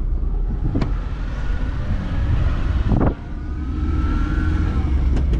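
Vehicle on the move, heard from on board: steady engine and road rumble, with a knock about three seconds in and a faint rising whine after it as it picks up speed.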